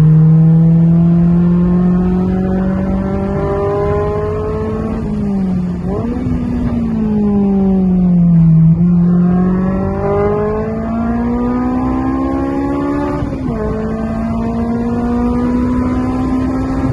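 2000 Honda S2000's F20C four-cylinder engine on track, its pitch climbing under acceleration and falling off, with sudden jumps in pitch at gear changes about six and thirteen seconds in.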